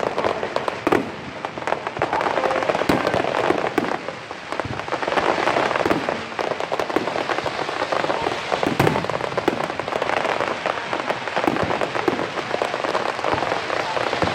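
Fireworks display: a dense, continuous crackling of many small bursts, like rain on a roof, with a few louder bangs standing out about one, three, six and nine seconds in.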